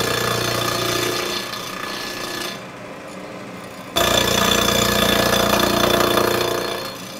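Vertical milling machine running, its end mill taking light cuts of about 25 thousandths into welded buildup on a cast aluminum motorcycle engine case. Steady spindle hum under a rough cutting noise that dies down about two and a half seconds in, comes back suddenly about four seconds in, and fades again near the end.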